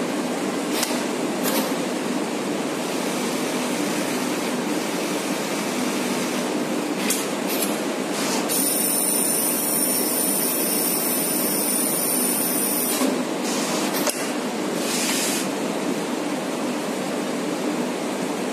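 JOOKE automatic template sewing machine running through a polo placket cycle: a steady hissing machine hum with a few sharp clicks. A high steady whine joins for about four seconds midway.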